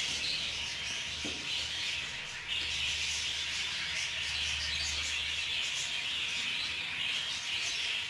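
A group of budgerigar chicks calling together in a steady, hissing chatter.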